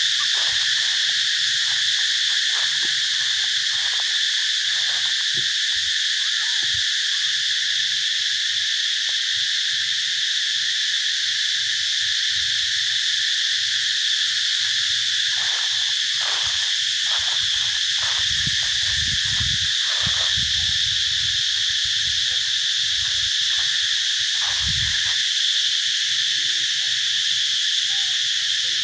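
A steady, loud insect chorus: an even high-pitched hiss with no pauses. A few low rumbles come through around the middle and near the end.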